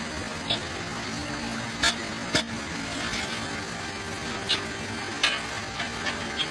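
A rake knocking and scraping on a street storm-drain grate as debris is cleared, about seven sharp clacks over a steady hiss of floodwater running into the drain.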